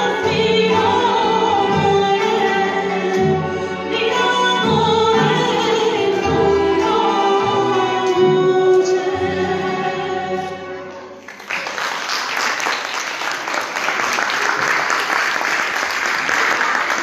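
A woman sings the close of an Armenian folk song with an instrumental ensemble, ending on a long held note that fades out about two-thirds of the way through. Applause follows to the end.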